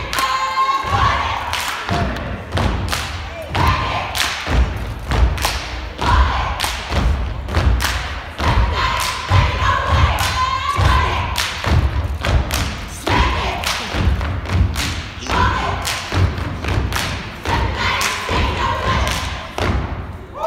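Step team stepping: rapid, syncopated foot stomps on a wooden stage mixed with hand claps and body slaps, with voices chanting or calling out between the beats.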